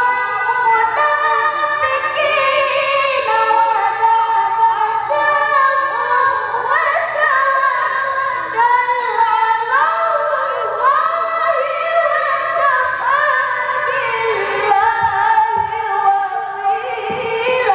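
A ten-year-old boy qari reciting the Quran (tilawah) in the melodic mujawwad style, amplified through a handheld microphone. He sings in a high voice, holding long, ornamented notes in long phrases with short breaths between them.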